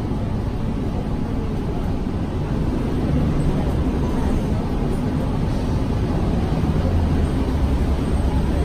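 Orion VII city bus driving, heard from inside the passenger cabin: a steady low drone of engine and road noise that gets a little louder about three seconds in.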